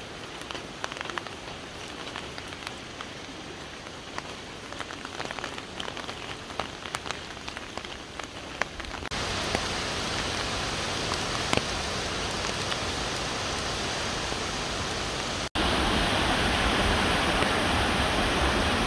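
Steady rush of falling water from Fukuroda Falls. It is softer at first, with scattered light ticks. About halfway through it becomes a louder, even rush, and it steps up again in loudness near the end.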